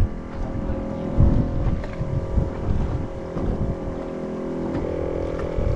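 A boat engine running steadily with a constant hum, with wind buffeting the microphone in irregular low gusts.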